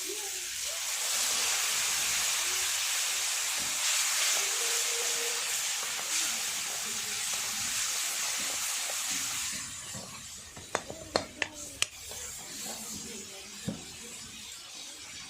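Food sizzling hard in hot oil in a pan, a loud steady hiss that dies down about ten seconds in. It is followed by a handful of sharp clicks from stirring in the pan.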